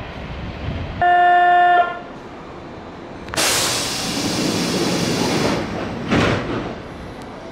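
Electric commuter train's horn gives one short, steady toot about a second in. A couple of seconds later comes a loud hiss lasting about two seconds, then a shorter hiss, over a low rumble.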